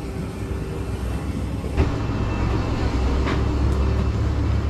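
Steady low mechanical rumble of airliner ground machinery at the gate, with a single knock about two seconds in, after which the rumble is louder.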